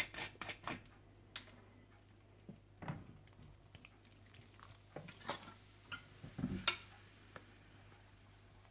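Faint, scattered clicks and light knocks of kitchen handling: a plastic sparkling-water bottle being handled and poured, and a wire whisk tapping a white porcelain mixing bowl, with the clearest knocks between about five and seven seconds in.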